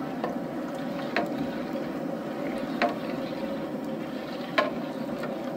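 Gas burner running steadily on high under a large aluminium stockpot while a long metal spoon stirs the thickening masa drink, with three sharp knocks of the spoon against the pot, about one, three and four and a half seconds in.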